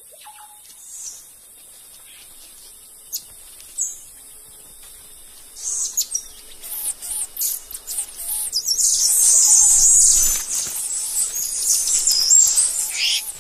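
Emperor tamarins giving high-pitched chirps and twitters over a faint high forest hiss. A few isolated chirps come first, then from about halfway the calls turn into a dense, rapid chatter that is loudest a little before the end.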